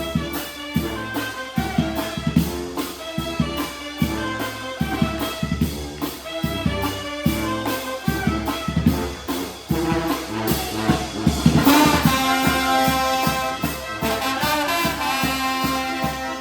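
A charanga brass band playing an EDM tune: trumpets and trombones over a steady, driving drum beat, with a cymbal crash about twelve seconds in.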